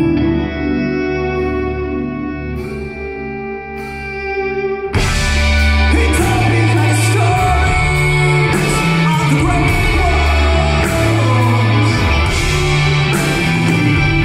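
Live progressive rock band, heard from the audience in a large hall. It opens with a quieter stretch of held keyboard chords, then about five seconds in the full band comes in loud with drums, bass and electric guitar under singing.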